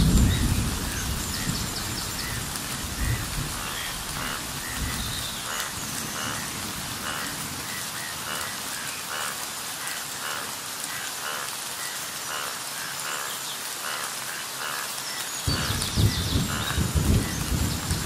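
Steady rain falling on forest foliage, with short bird calls repeated throughout. A low rumble of thunder comes at the start and again for the last couple of seconds.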